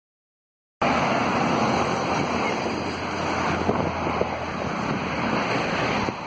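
Steady outdoor rushing noise from a handheld camera's microphone, cutting in suddenly about a second in: a mix of breeze on the microphone and road traffic.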